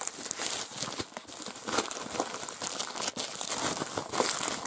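Plastic mailing bag crinkling and rustling as it is opened by hand and pulled off the box inside, a dense run of small crackles.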